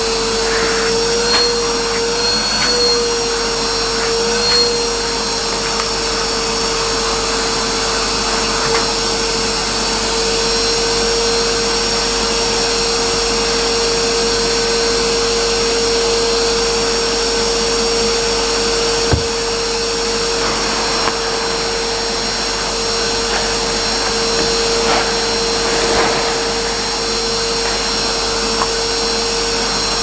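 Henry canister vacuum cleaner running steadily with a constant whine, its floor nozzle worked over carpet. The pitch wavers briefly near the start, and there are a few light knocks.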